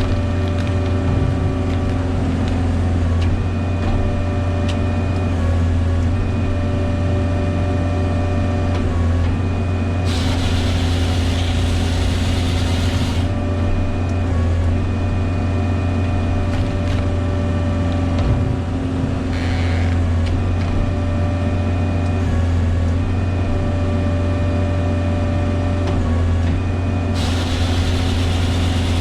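Bobcat Toolcat's diesel engine running steadily while it powers the firewood processor's hydraulics. A rushing hiss comes in twice, for about three seconds about ten seconds in and again near the end.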